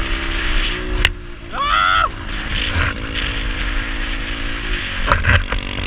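Pit bike engine running at a steady cruise, its note dipping slightly a couple of times, with wind hiss. A sharp click comes about a second in, and a short rising call just after.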